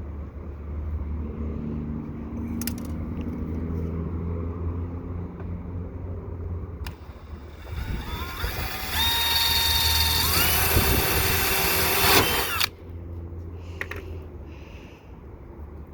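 A power drill runs for about four and a half seconds, its whine stepping up in pitch as it drills through, then stops suddenly. A steady low hum sits underneath throughout.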